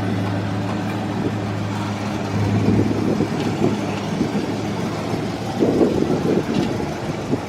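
Car engine idling steadily, a low even hum that weakens about halfway through.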